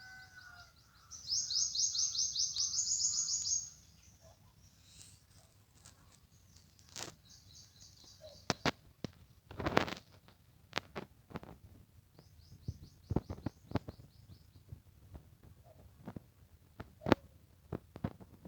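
A bird singing a fast, high trill of rapid repeated notes for about two seconds, starting about a second in and rising slightly in pitch, with a fainter trill later. Scattered sharp clicks and taps are heard in between.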